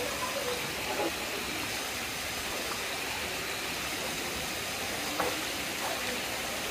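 Steady hiss of water pouring into a pool from a small spillway.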